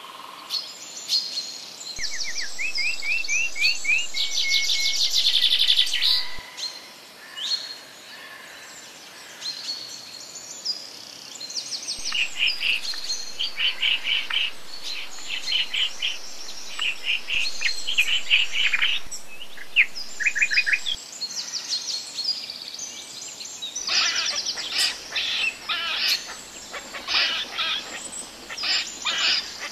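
Several songbirds chirping and trilling, with quick runs of repeated high notes. The birdsong thins out a few seconds in and builds again toward the middle and near the end.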